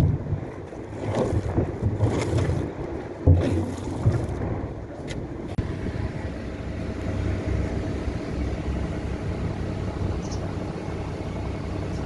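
Long-handled yard scraper pushed along a wet concrete floor, scraping muck and slurry in rasping strokes about once a second. After about five seconds the strokes stop and only a steady, quieter background noise is left.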